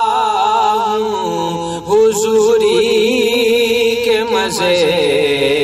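A man singing an Urdu naat (devotional song in praise of the Prophet) solo, holding long wavering notes that slide and ornament between pitches.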